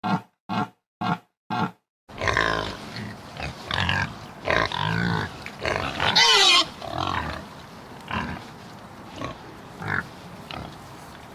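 Animal calls: short grunts repeated about twice a second, then a string of squeals and grunting calls that glide in pitch.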